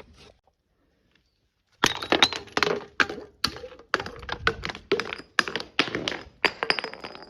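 Something brittle being crushed: after a brief silence, a rapid run of sharp cracks and crunches starts about two seconds in and keeps going.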